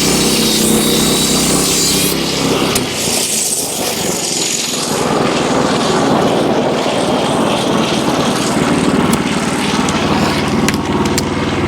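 Wood-Mizer LX25 sawmill running as its band blade cuts a hemlock beam, with the engine holding a steady note. About two and a half seconds in, the steady engine note drops away and a rougher running noise carries on.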